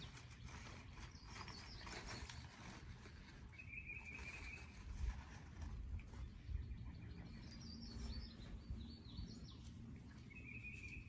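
Wild birds singing faintly, with short high chirping phrases repeating several times. A few dull low knocks come in the middle.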